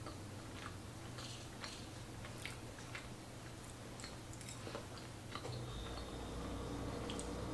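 A person chewing a forkful of cooked lupin-flour pasta, quietly and with scattered small clicks. A low steady hum comes in near the end.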